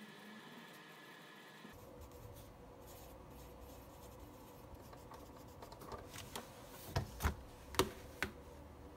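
Pen writing on paper, a faint scratching, then a string of sharp taps near the end.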